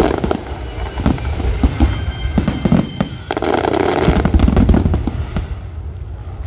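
Aerial fireworks going off in a dense barrage: rapid overlapping bangs and crackling shell bursts, heaviest from about three seconds in to five, then thinning near the end.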